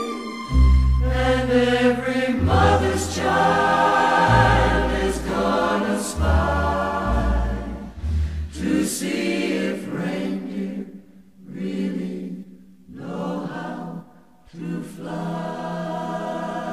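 Music: a choir singing over low bass notes in a slow Christmas song, with a few short dips between phrases.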